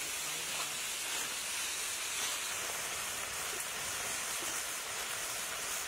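Tamarind beetles roasting in a wok over an open fire, giving a steady sizzling hiss.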